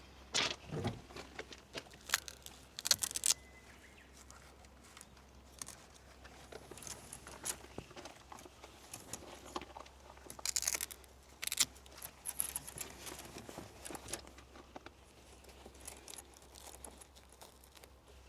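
Scattered clicks, clinks and rustling of gear being handled, with clusters of sharper clinks about three seconds in and again around ten to twelve seconds.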